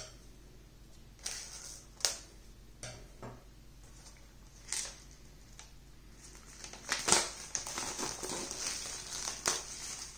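Plastic shrink-wrap on a SteelBook case crinkling under the fingers: a few separate crackles at first, then dense crinkling and tearing from about seven seconds in as the wrap is picked and peeled off.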